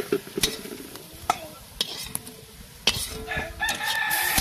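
A metal spatula clatters and scrapes in an iron kadai while oil sizzles. Near the end a rooster crows, one long call.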